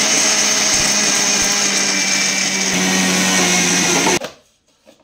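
Electric mixer grinder running at full speed, grinding biscuits to powder in its stainless-steel jar: a loud steady motor whine with a rushing hiss. It is switched off about four seconds in, and the motor cuts out and quickly spins down.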